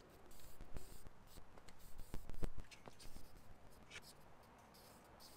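Faint scrapes, scuffs and a few light knocks of hands working a steel gate post in a dirt post hole.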